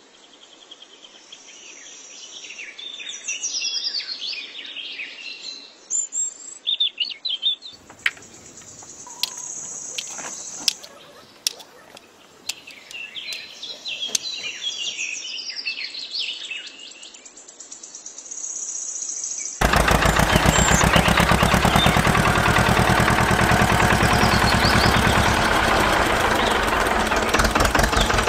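Birds chirping and twittering, with a few sharp clicks in the middle. About twenty seconds in, a much louder tractor engine starts idling with a rapid, even chug.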